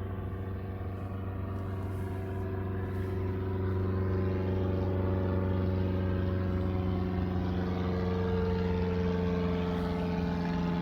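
A motor engine running steadily with a low, even hum, growing louder about four seconds in.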